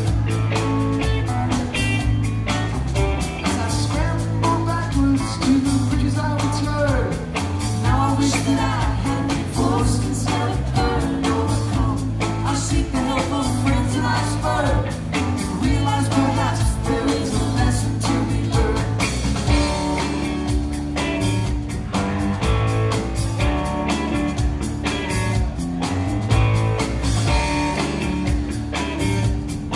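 Rock song with electric guitar, bass, drums and a singing voice, playing steadily.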